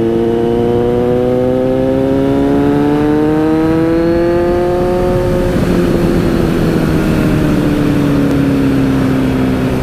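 Kawasaki Z900's inline-four engine with a Racefit aftermarket exhaust, heard from the rider's seat while riding: the engine note climbs gradually as the bike accelerates for about five seconds, then drops and slowly falls as the throttle eases off.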